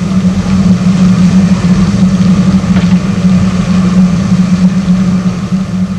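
A loud, steady low hum with an even hiss over it, unchanging throughout.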